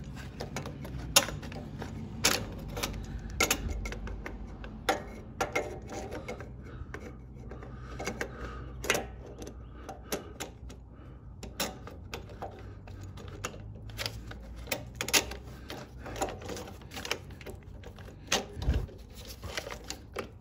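Irregular clicks and light metallic taps of a new carburetor and its throttle linkage rods being handled and slid onto the mounting studs of a Honda GCV160 mower engine. A steady low hum runs beneath.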